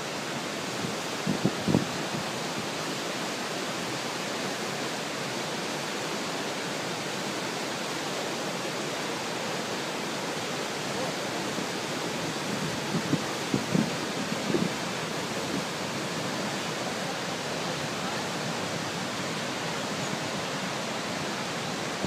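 Steady rushing of a waterfall's falling water, with a few short, fainter low sounds about 1.5 seconds in and again around 13 to 15 seconds.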